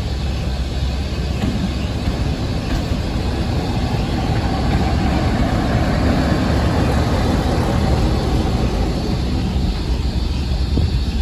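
Class 47 diesel locomotive's Sulzer twelve-cylinder engine running as it hauls a train slowly past, growing louder as the locomotive draws level about halfway through, then the coaches rolling by on the rails.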